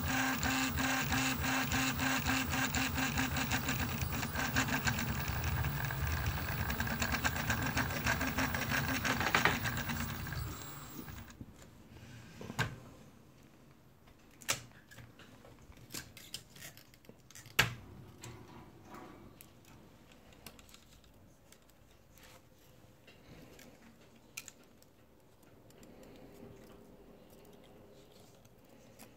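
Rebel II HD 3D printer printing at speed, its stepper motors buzzing and whirring in fast, busy pulses. About ten seconds in the motor noise stops, leaving a quiet background with a few sharp clicks.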